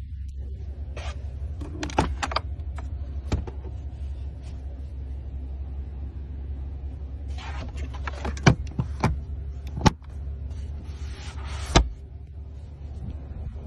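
A car's steady low rumble with a scattered series of sharp clicks and knocks, the loudest a few seconds from the end.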